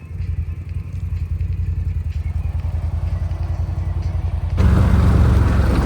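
CFMOTO quad bike engine running steadily under way. About four and a half seconds in the sound jumps suddenly louder, the engine heavier and a broad rushing noise added over it.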